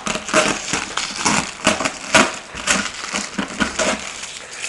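Packing tape being ripped by hand from a cardboard box, with the cardboard crackling and scraping in a string of short, irregular tears.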